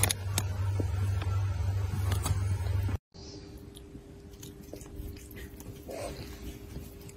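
A cat gnawing and chewing on a person's fingers: soft chewing clicks over a faint steady hum. This follows a sudden cut about three seconds in; before it comes a louder low rumble with scattered clicks.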